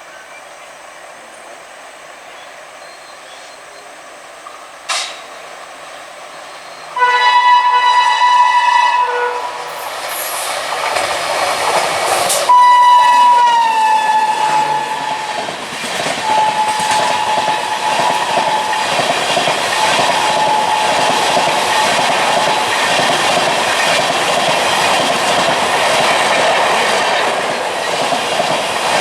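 Indian Railways express locomotive horn, sounding two blasts a few seconds apart. The second blast falls in pitch as the train passes close by, followed by the steady rumble and clatter of the coaches running past on the rails.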